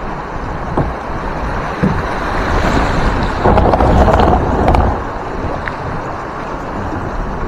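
Rushing river water with wind buffeting the microphone. The water noise swells louder about halfway through.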